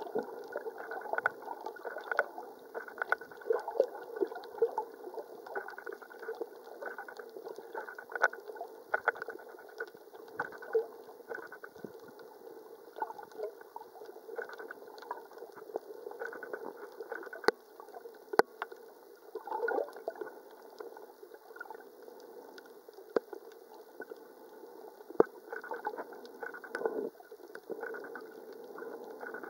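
Muffled underwater gurgling and sloshing of water around a submerged camera, with scattered short clicks and pops.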